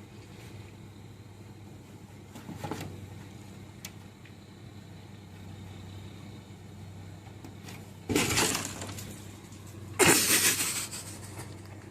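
Two short, loud crashes about two seconds apart, over a low steady hum.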